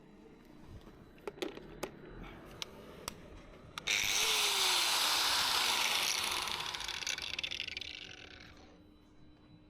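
A few light clicks, then an angle grinder comes on suddenly about four seconds in, runs loud with a harsh hiss for about two seconds, and fades away over the next three seconds as the disc winds down.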